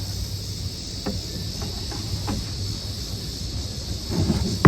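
Steady insect chorus with wind buffeting the microphone, broken by a few light clicks and knocks, the loudest one right at the end.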